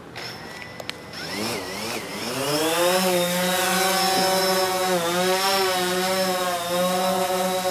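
DJI Phantom 4 quadcopter's four electric motors and propellers spinning up about a second in. The buzzing whine rises in pitch as the drone lifts off, then holds steady in a hover, with small dips in pitch as the motors adjust.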